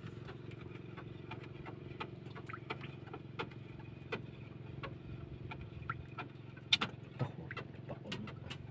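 A boat engine idling steadily in a low hum, with scattered small clicks and knocks of fishing gear being handled on the wooden boat, two of them louder about seven seconds in.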